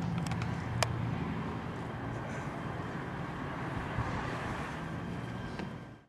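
Outdoor ambience: a steady low engine hum with wind noise on the microphone and a few faint clicks, fading out near the end.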